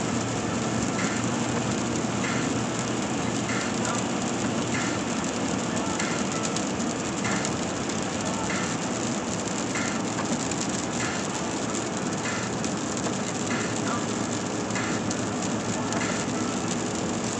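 Steady tyre and road noise on wet pavement heard inside a car cabin, with the windshield wipers sweeping at a regular pace, a short swish about every 1.2 seconds.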